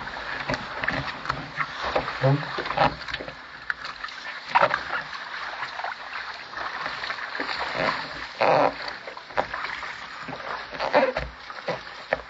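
Water splashing and sloshing around a Contender sailing dinghy's hull as it is launched off a slipway, with irregular knocks on the hull and several louder splashes.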